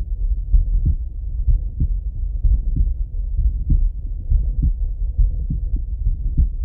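A man's heartbeat heard through a stethoscope chest piece: a slow, steady beat a little under once a second, over a low muffled rumble.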